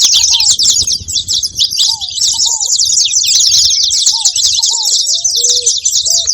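Saffron finch singing: a fast, unbroken run of high chirps, with a few lower down-slurred notes and a short held note underneath from another bird.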